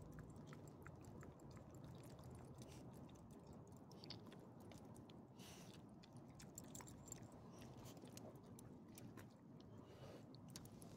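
Small dogs eating and licking food from a person's hand: faint, irregular chewing and lapping clicks.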